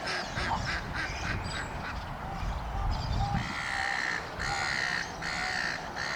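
Ducks quacking: a quick run of short quacks, then longer, drawn-out calls from about three seconds in.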